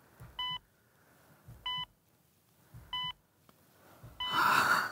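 Heart-rate monitor beeping steadily, one short electronic beep about every 1.25 seconds, four beeps. Near the end a short, louder burst of rustling noise covers the beeps.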